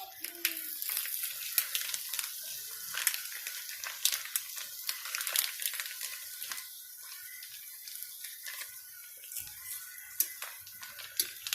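Plastic sauce packets crinkling and tearing as they are handled and opened, with many small sharp clicks and crackles.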